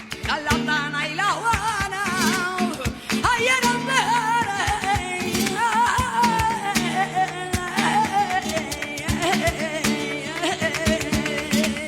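Flamenco song: a singer's long, wavering melismatic line over acoustic flamenco guitar, the voice falling in pitch through the second half.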